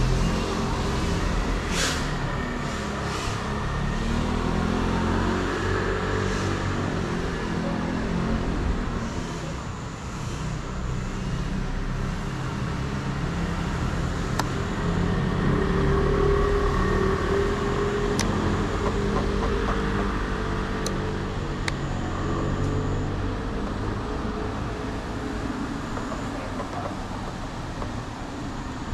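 FPV drone's motors and propellers buzzing, the pitch rising and falling as the throttle changes, with a few sharp clicks in the second half.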